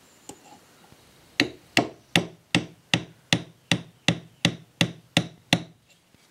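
Hammer tapping a 5/32 punch about a dozen times in an even rhythm, roughly three light taps a second, driving a new needle-valve seat into the seat bore of a Walbro LMT aluminum carburetor body.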